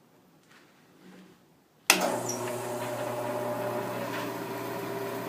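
Grizzly bandsaw switched on about two seconds in: a sharp start, then the motor and blade running up to a steady hum with several steady tones. This is its first run after a repair for vibration, which the owner still finds not vibration free.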